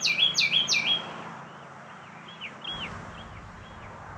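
A songbird singing a fast repeated whistled phrase, about three phrases a second, loud for the first second and then carrying on more faintly for a few more phrases.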